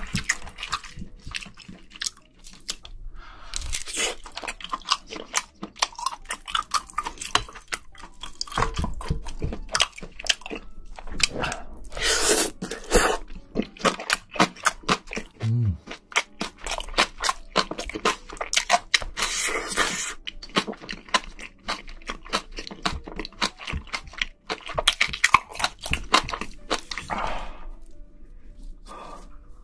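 Close-miked eating of spicy braised seafood: a steady run of crunchy chewing and wet mouth clicks, with several louder spells of about a second of crunching or slurping.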